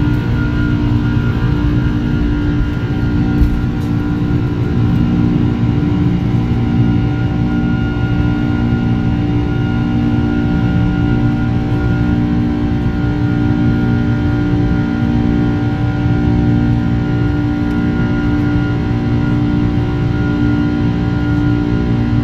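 Boeing 747-400's four jet engines at take-off power, heard inside the upper-deck cabin, through the end of the take-off roll and the climb-out. The sound is a loud, steady drone with several held tones and a slow wavering beat.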